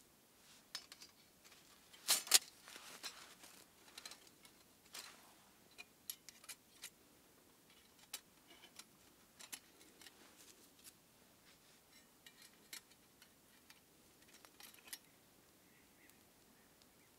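Clicks and clinks of a Petromax Hobo BK1 folding stove's perforated metal panels being handled and slotted together, irregular, with the loudest clacks about two seconds in; the clicking stops near the end.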